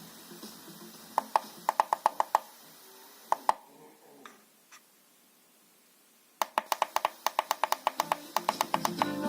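Short electronic beeps from a Bluetooth speaker's volume buttons, a run of them as the playing music is turned down to near silence with only a faint hiss. About three seconds later a quicker run of beeps turns the volume back up, and guitar music comes back louder near the end.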